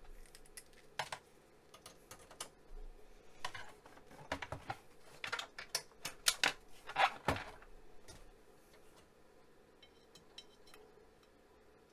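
Irregular clicks, knocks and rattles of hand tools being handled against the computer's metal chassis: a screwdriver and an alligator-clip lead being set in place to discharge the CRT. The knocks come thickest and loudest a few seconds in, and thin out to faint ticks near the end.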